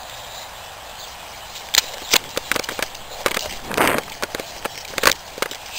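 A light outdoor hiss, then from about two seconds in a quick, irregular run of knocks and rustles from someone moving across a leaf-strewn lawn, with a longer rustle near the four-second mark.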